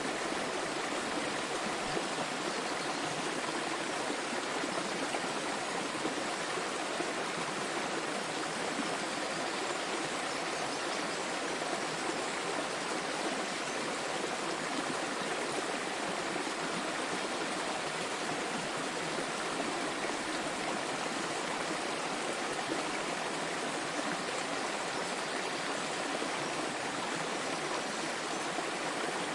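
Small waterfall, with water flowing and splashing steadily and evenly.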